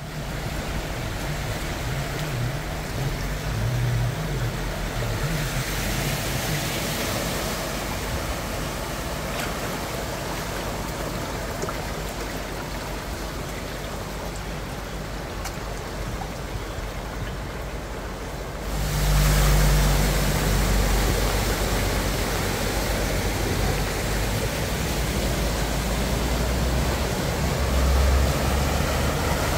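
Floodwater rushing across a street while cars drive through it, tyres splashing and throwing up spray over a low engine hum. The sound gets louder about two-thirds of the way in.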